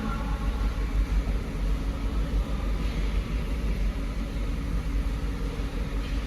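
Toyota Yaris engine idling, a steady low rumble with uneven loudness, in a car being diagnosed for a misfire.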